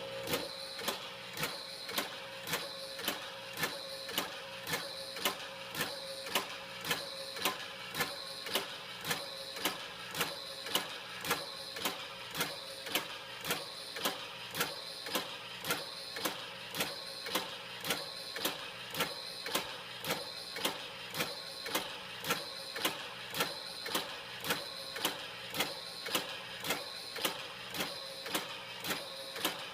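Electric ice cream maker running: a steady motor hum with a sharp click repeating evenly, a bit under two times a second. The rhythm sounds like someone saying "happy, HAPPY, happee, HAPPEE".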